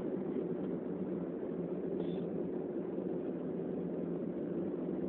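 Steady low hum of background noise, with a faint brief high-pitched sound about two seconds in.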